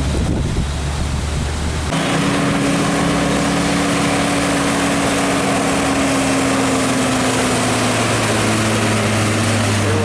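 Heavy diesel truck engine running as the truck passes close by. Its deep engine note changes about two seconds in and then falls slowly in pitch, over a steady rush of road noise.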